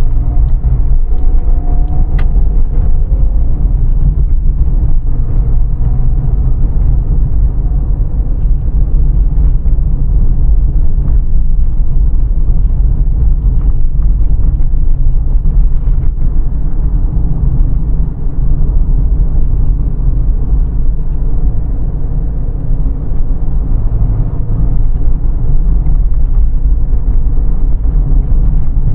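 Steady low rumble of a car driving at road speed, heard inside the cabin: engine and tyre noise on asphalt.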